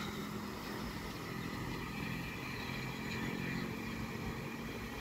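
Steam locomotive at the head of a train standing in a station, heard from a distance: a steady hiss with a low rumble and hum beneath it.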